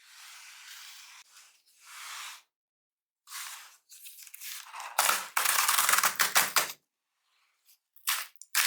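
Cardboard and paper packaging of a MacBook Air box being handled and torn open: soft rubbing and sliding at first, a loud crackly tearing stretch about five seconds in, then a few sharp taps near the end.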